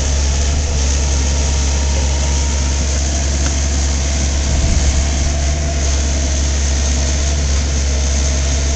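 Compact excavator's diesel engine running steadily under load with a constant low hum, as the machine pushes against a tree.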